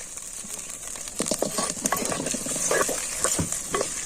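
Masala paste sizzling in a hot pan, with a metal spoon stirring and scraping against the pan in quick clinks from about a second in.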